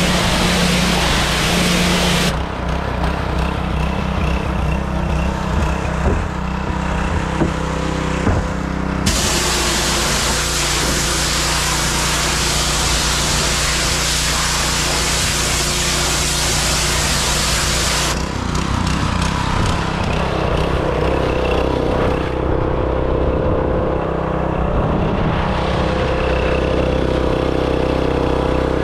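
Gas-engine pressure washer running steadily while its wand sprays water into a plastic wheelie bin: a hard hiss of spray for the first two seconds and again from about nine to eighteen seconds in, with the engine running on alone between and after the sprays.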